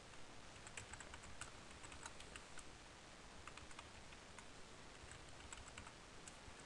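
Faint typing on a computer keyboard: scattered, irregular keystrokes.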